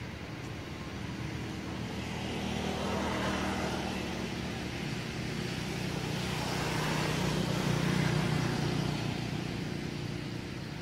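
A motor vehicle's engine passing by, growing louder and fading, with the sound swelling twice: about three seconds in and again near eight seconds.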